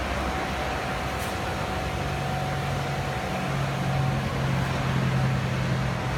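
CNC plasma cutting machine running: a steady hiss with a low hum that grows louder about two seconds in.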